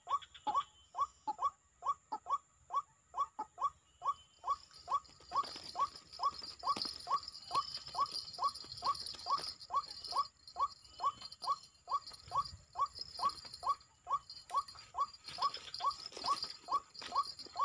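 White-breasted waterhen (ruak-ruak) calling: a long, even run of short rising notes, about two to three a second.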